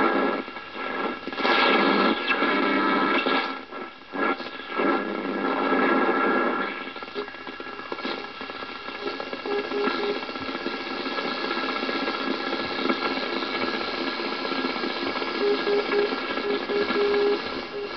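Direction-finder receiver's loudspeaker giving static and hiss, with loud crackling surges over the first several seconds while the dial is being tuned. The noise then settles to a steady hiss through which a faint Morse-code tone keys on and off, an aeronautical radio beacon's identifier, clearest near the end.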